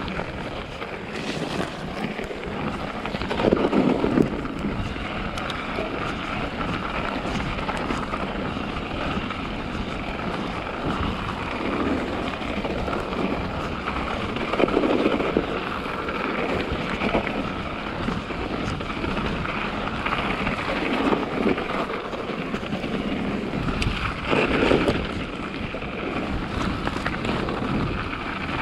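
Mountain bike riding along a snowy forest trail: steady tyre and wind noise on the microphone, with several louder swells of about a second each.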